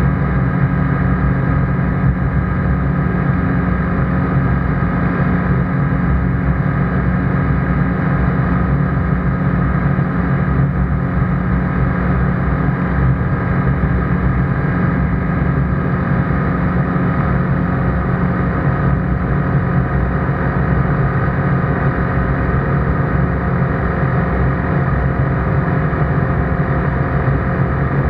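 ICP Bingo ultralight's engine and propeller droning steadily in flight, heard inside the enclosed cockpit.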